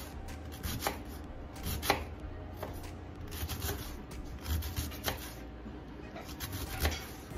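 Kitchen knife slicing a wedge of green cabbage on a plastic cutting board: an uneven series of cuts, roughly one a second.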